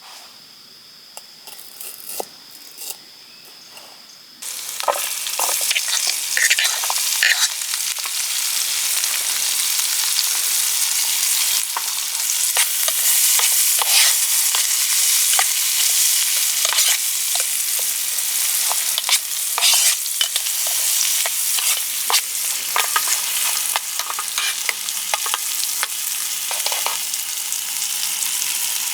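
Food frying in a hot pan: a loud sizzle starts suddenly about four seconds in and holds steady, with clicks and scrapes of a utensil stirring through it. Before the sizzle, a faint steady high tone and a few light clicks.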